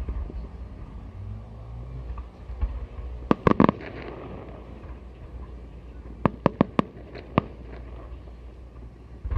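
Aerial fireworks bursting high overhead. A quick cluster of four sharp bangs comes about three seconds in, then another run of four bangs a little after six seconds and a single bang just after seven.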